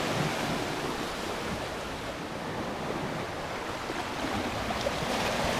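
Sea surf washing against coastal rocks, a steady rush of water.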